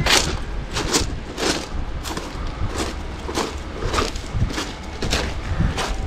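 Footsteps crunching on a pebble beach, the stones grating underfoot with each stride, about one step every 0.6 seconds.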